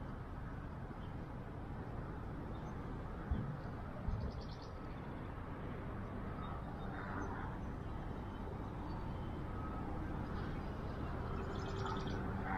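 Steady low outdoor background noise with a few short bird calls, and two soft knocks about three and four seconds in.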